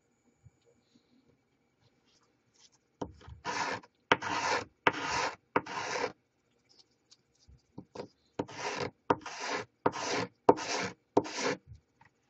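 A small wooden box sanded by hand on a sanding block, in short back-and-forth strokes. It comes in two runs of about five strokes each, with a pause of about two seconds between them.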